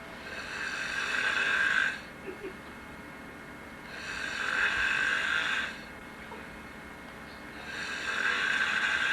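A person asleep on a couch, snoring: three long snores about four seconds apart, each building in loudness and then stopping sharply.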